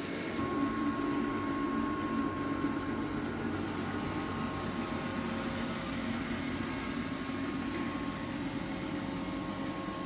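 iCLEBO O5 robot vacuum cleaning a hard floor: its suction motor and brushes make a steady hum with a thin whine over it.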